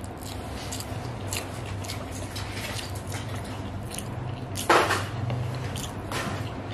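Close-miked chewing and mouth clicks of a person eating a rice meal by hand, with fingers mixing rice on the plate. One louder short sound a little past halfway, over a steady low hum.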